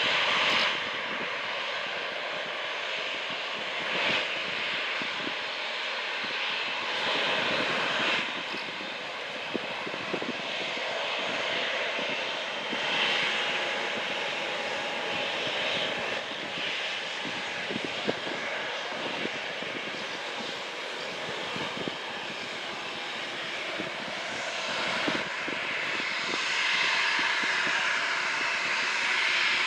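Aircraft engines running steadily, with small swells, growing louder over the last few seconds.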